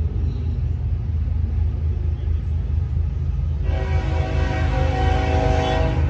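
Diesel locomotive air horn on an approaching BNSF coal train, one long blast starting a little past halfway and stopping just before the end, sounded for the grade crossing. A steady low rumble runs underneath.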